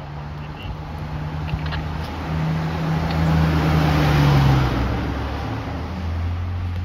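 Ambulance driving past at close range. Its engine hum and tyre noise build to a peak about four seconds in, then ease off as it pulls away.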